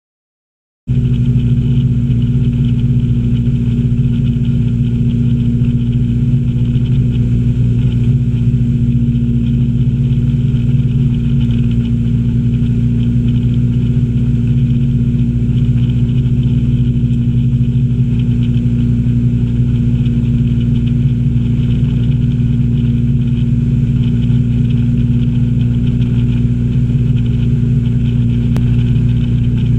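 Ski boat's inboard engine running at a steady towing speed, an even drone with water and wind rushing past. It cuts in suddenly about a second in.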